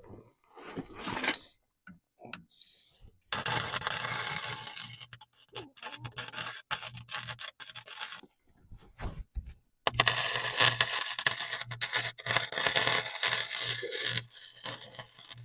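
Electric welder arc crackling in two long stretches, with a pulsing mains hum, as a makeshift exhaust support is welded in place, after some fainter scraping near the start.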